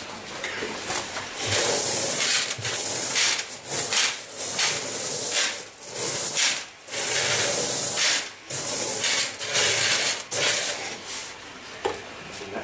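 Small pebble gravel being poured into a glass aquarium sump compartment and spread by hand, a rattling hiss that comes in several long spells with short breaks and eases off near the end.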